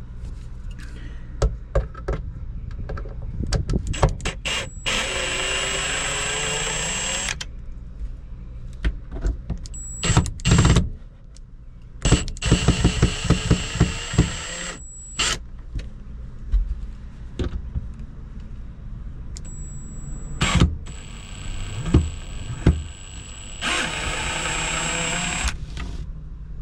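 Cordless drill/driver backing out panel screws, its motor whining in several runs, three of them a few seconds long, with the pitch gliding as it speeds up and slows. Clicks and knocks of the driver and screws come between the runs.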